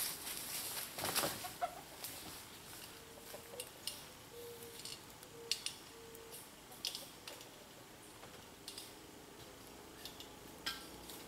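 Chickens clucking faintly, with a few short, low, drawn-out hen calls about three to six seconds in, amid scattered light clicks and rustling.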